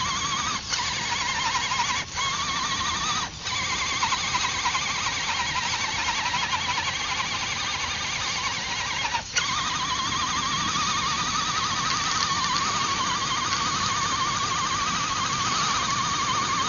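Scale RC crawler truck's electric motor and gearbox whining under throttle as the truck sits stuck in deep mud, the pitch wavering with the load, cutting out briefly four times as the throttle is let off and reapplied.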